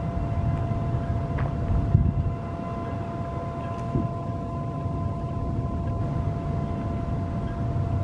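Steady low rumble of background noise with a faint steady hum over it, and a short low bump about two seconds in.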